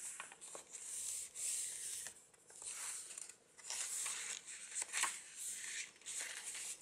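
Paper pages of a handmade junk journal rustling and rubbing as they are handled and turned, in several short rustles.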